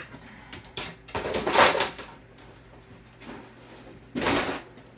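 LEGO plastic pieces and packaging being handled and rummaged through in a storage tote: a few short rustling, clattering bursts, the loudest about a second in and another about four seconds in.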